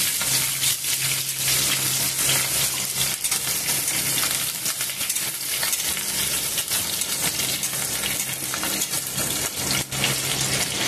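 Sliced onions and green chillies sizzling in hot oil in an iron kadhai, with a metal spatula scraping and clicking against the pan as they are stirred. A steady low hum runs underneath.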